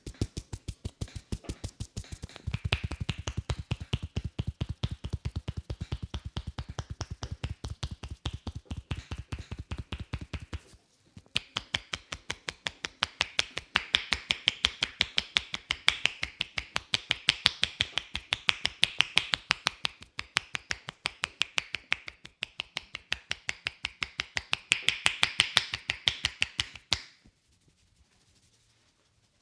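A masseur's hands striking the neck in rapid percussive massage, about six even strikes a second. The first several seconds have deeper, heavier strikes. After a short break about eleven seconds in, the strikes come back sharper and clicking, and they stop near the end.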